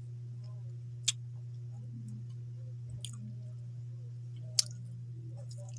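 Someone eating fish with her fingers: quiet chewing and mouth noises, with two sharp clicks, one just after a second in and a louder one past four seconds, over a steady low hum.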